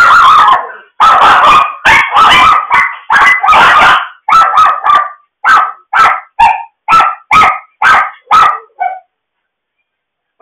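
Dog barking loudly: a rapid run of barks that slows into single barks about two a second, stopping about a second before the end.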